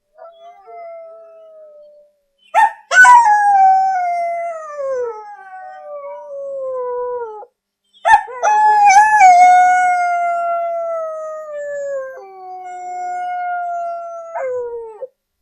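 A dog howling: a faint howl at first, then two long, loud howls, each starting sharply and sliding down in pitch. The second ends with a short, higher howl.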